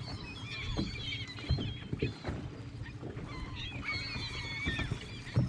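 A flock of gulls calling: many short, high, wavering cries overlapping one another, over a low steady hum and a few dull knocks.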